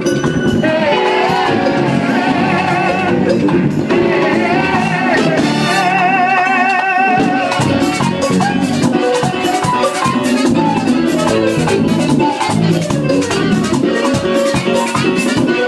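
Live Latin band music: a man singing into a microphone over keyboard and hand drums, with a steady rattle of percussion. His long notes waver with vibrato in the first half.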